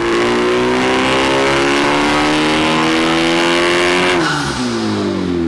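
Honda Civic Type R's turbocharged 2.0-litre four-cylinder, breathing through a catless downpipe and AWE Touring exhaust, pulling under full load on a hub dyno with the revs climbing steadily. About four seconds in the throttle closes and the revs fall away.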